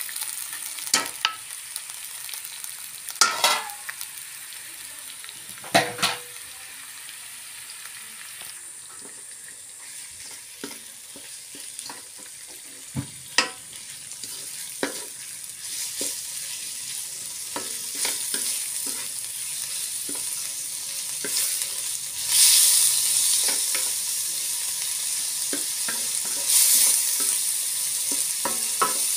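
Raw ground meat frying in a nonstick wok, sizzling while a wooden spatula stirs and scrapes it through, with a few sharp knocks of utensils against the pan in the first several seconds. The sizzle grows louder about three-quarters of the way through.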